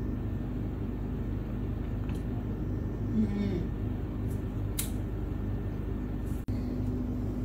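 Steady low hum of room noise, with a short low voice-like murmur that slides down in pitch about three seconds in, and a few faint clicks.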